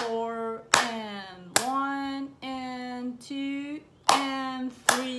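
Hands clapping a rhythm, five sharp claps with a pause in the middle. A woman's voice chants along, holding each syllable on a steady pitch.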